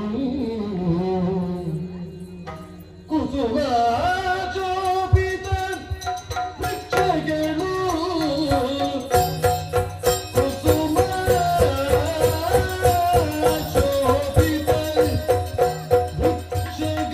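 Yakshagana music: a sung melody over a steady drone, with drum strokes joining about six seconds in and keeping a quick, even beat.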